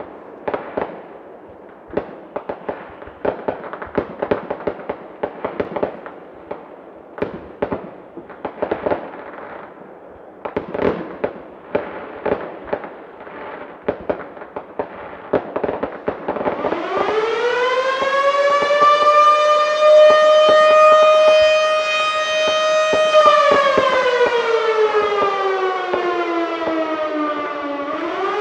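Fireworks and firecrackers cracking and banging in rapid, irregular succession. About sixteen seconds in, a Federal Signal Model 7B outdoor warning siren winds up, holds a steady tone, slowly winds down, then starts rising again near the end: the rise-and-fall wail of the attack signal.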